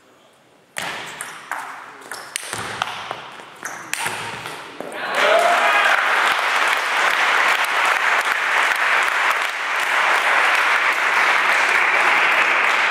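A table tennis rally: the celluloid ball clicking sharply back and forth off the bats and table for about four seconds, starting about a second in. Then, from about five seconds in, spectators break into steady applause and cheering as the point is won.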